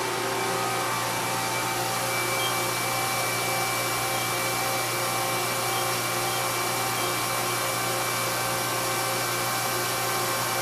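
Mori Seiki NT3200 DCG multi-tasking CNC turning-milling center running under power: a steady whirring hum with several steady tones over it, unchanging throughout.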